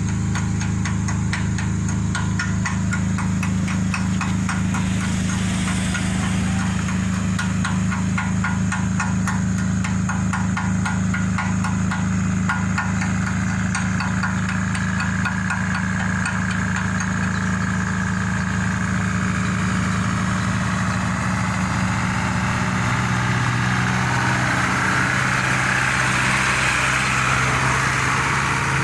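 Excavator's diesel engine running steadily under load, with rapid, regular metallic knocking through the first half. A rushing noise builds near the end.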